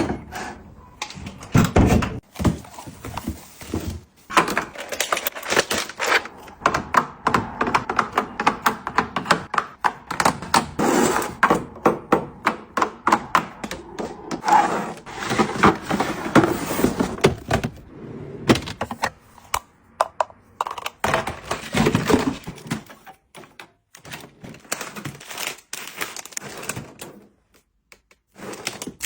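Objects and packaging being handled close to the microphone in an unboxing: a dense run of irregular taps, clicks and thunks, broken by a few brief pauses.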